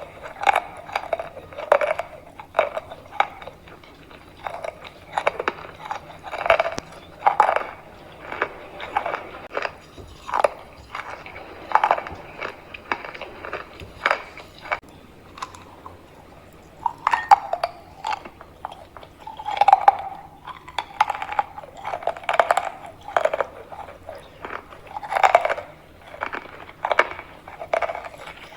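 Chalk being bitten and chewed close to the microphone: a run of irregular dry crunches, several a second at times, with a short pause about halfway.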